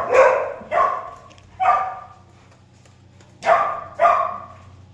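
A dog barking, about five short loud barks: three in the first two seconds, a pause, then two more in quick succession.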